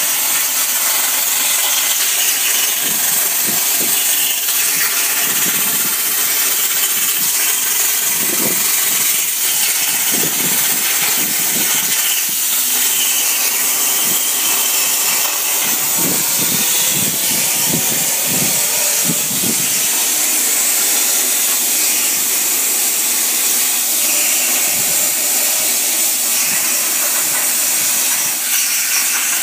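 CNC plasma cutter torch cutting 3/16-inch steel plate: a loud, steady, high hiss, with irregular low rumbles through the middle stretch.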